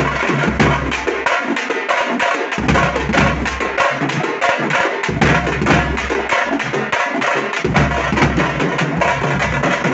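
Tamate (tamte) frame drums played in a fast, dense rhythm of sharp strikes, with a deep low beat underneath that drops out a few times.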